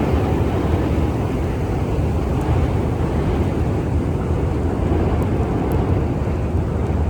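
Outdoor city ambience in a snowstorm: a steady low rumble with no distinct events.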